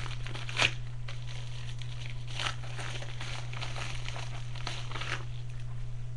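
Packaging crinkling and rustling as it is handled and torn open: a scatter of short rustles, the loudest about half a second in, dying away about five seconds in. A steady low hum runs underneath.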